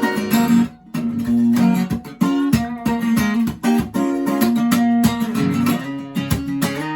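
Guitar strummed in a steady rhythm, an instrumental passage of a song with no singing, with a brief drop just under a second in.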